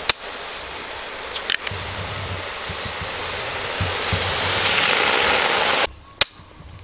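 Aluminium beer can's pull tab cracking open with a sharp click, then a long, steady hiss of carbonation escaping that grows louder and stops abruptly near the six-second mark. A second sharp tab click follows just after.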